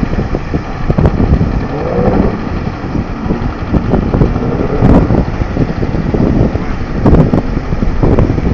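Tractor engine running, heavily buffeted by wind on the microphone, with the gusts rising and falling.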